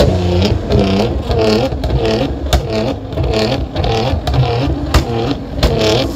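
Modified car's engine revved over and over in quick blips, its pitch dipping and climbing about twice a second, with several sharp cracks from the exhaust in among the revs.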